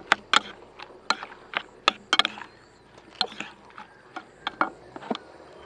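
A fork clinking and scraping against a bowl as food is stirred and picked up: a dozen or so sharp, irregularly spaced clicks.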